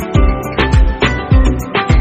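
Background music with a steady beat: deep bass hits that drop in pitch, a little under two a second, under sustained tones.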